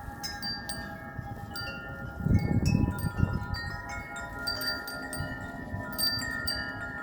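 Several metal wind chimes ringing in strong, gusty wind, struck again and again with their tones overlapping and sustaining. A brief low rumble swells about two seconds in.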